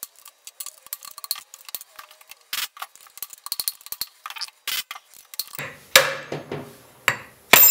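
Rapid, light metal-on-metal taps of a hammer on an SM465 four-speed transmission's rear bearing, seating it further down the shaft to expose the snap ring groove. There are heavier knocks from about five and a half seconds in, with the loudest near the end.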